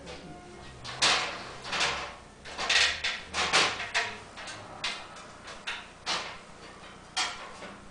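Irregular knocks, taps and clatters, about a dozen, as rigid Plexiglas panels are handled and pressed into place against a wall.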